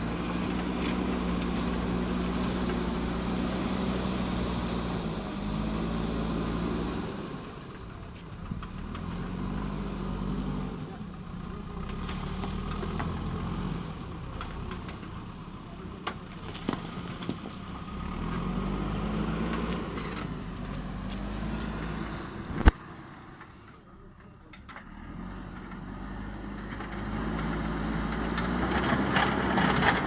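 JCB 3DX backhoe loader's diesel engine working under load as the front bucket pushes and carries soil, its pitch rising and falling again and again as the throttle comes up and eases off. A single sharp knock stands out about three-quarters of the way through.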